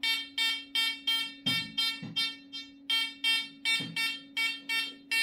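Amiral XP-4 discriminating metal detector giving a pitched target beep, about three a second, as a small gold coin is swept back and forth over its search coil. A faint steady low hum runs underneath.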